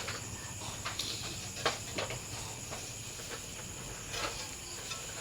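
A sleeping Shih Tzu snoring softly: two short, breathy snores about three seconds apart. They sound over a steady high-pitched chirring and a few faint clicks.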